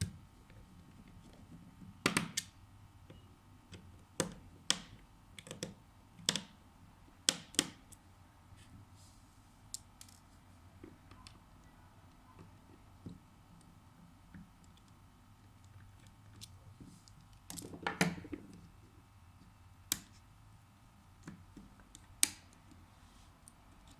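Sharp, irregular clicks and taps of small repair tools against the parts of an iPhone 6s Plus being taken apart, with a short cluster of clicks about three-quarters of the way through.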